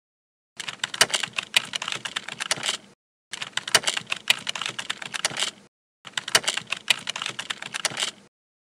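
Computer keyboard typing in three bursts of rapid keystrokes, each lasting about two and a half seconds, with short silent pauses between them.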